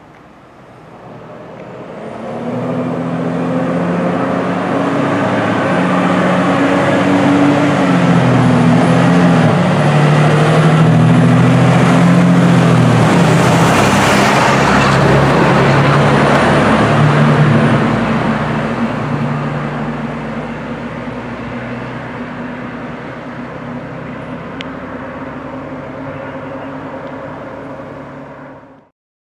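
A fire engine's diesel engine drones as the truck approaches, passes close by and pulls away. The engine pitch steps between held levels as it runs, and the tyre and road rush is loudest as it goes by. The sound cuts off suddenly near the end.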